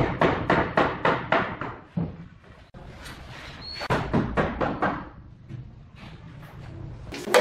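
A steel hammer tapping rapidly on the formwork of a concrete kitchen countertop, about four knocks a second for the first two seconds. A few more taps follow around four seconds in, then one sharp knock near the end.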